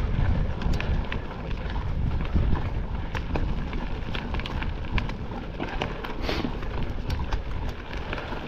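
Mountain bike ridden over rough trail: a steady rumble of wind on the microphone and tyres on the ground, with many scattered clicks and knocks from the bike rattling.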